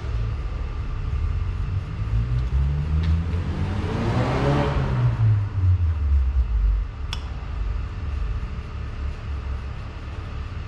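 A motor vehicle passing by, its engine rising in pitch and then falling, loudest about four and a half seconds in, over a steady low rumble. A sharp click comes about seven seconds in.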